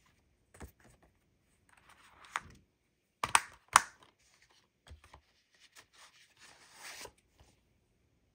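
Plastic Blu-ray case being handled and snapped shut: two sharp clicks about half a second apart are the loudest sounds, with softer rustling and scraping of the case before and after.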